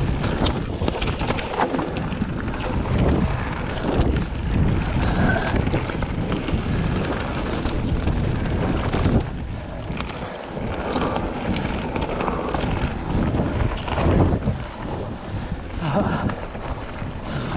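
Wind buffeting an action camera's microphone at speed on a mountain bike descent, with the tyres running over loose gravel and rock and the Commencal bike rattling and clattering over the bumps. There is a brief lull about ten seconds in.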